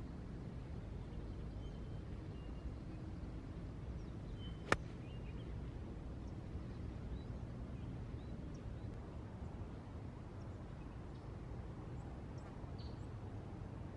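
A single sharp crack of a golf iron striking the ball about four and a half seconds in, over a steady low outdoor background with a few faint bird chirps.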